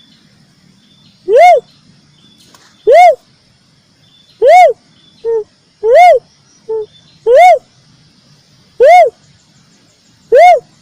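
Uncal cuckoo-dove lure call: seven loud, evenly spaced cooing notes, one about every second and a half, each rising then falling in pitch. Two shorter, quieter, lower notes fall between the fourth and sixth notes.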